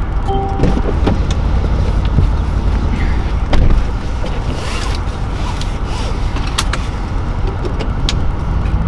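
Cabin sound of a Mercedes-AMG C63 S coupé: the 4.0-litre twin-turbo V8 running at low revs as a steady low drone. A short chime sounds near the start, and sharp clicks follow as the seatbelt is drawn across and buckled.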